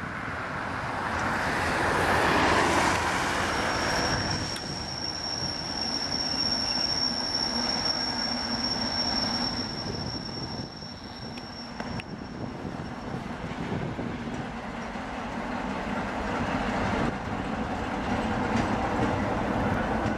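ChME3T shunting diesel locomotive running light past on the rails, loudest about two seconds in as it goes by. From about three seconds in a thin, steady, high wheel squeal sounds over the engine and rail noise, dying away after about thirteen seconds.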